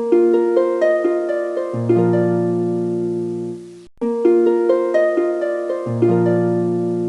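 Background music: a plucked-string melody of short notes that fade after each pluck, a phrase that loops about every four seconds with a brief drop-out between repeats.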